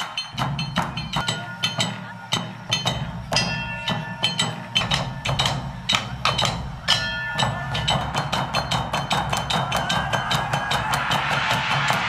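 Festival percussion: rapid, steady strikes on small metal gongs or bells, each strike ringing on, over a low drone. Near the end a hiss builds up and the strikes blur into it.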